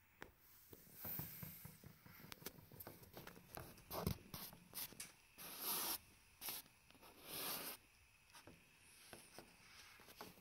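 Handling noise: scattered light clicks and rustling, with a few short hissing rubs, as the phone and the gas burner assembly in its cardboard box are moved about.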